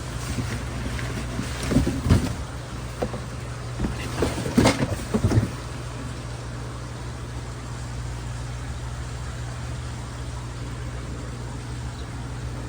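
Steady low hum of running aquarium equipment, with a few seconds of packaging being handled near the start: rustling, knocks and thumps as the pump's box is opened.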